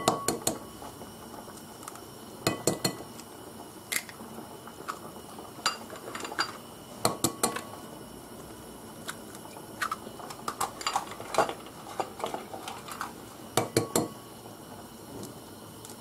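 Eggs cracked one after another against the rim of a glass bowl: groups of sharp taps and clinks every couple of seconds.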